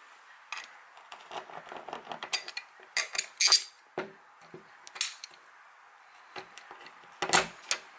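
Loose metal bolts and screws clinking and rattling against each other as someone picks through a container of hardware: irregular clinks, loudest about three and a half seconds in and again near the end.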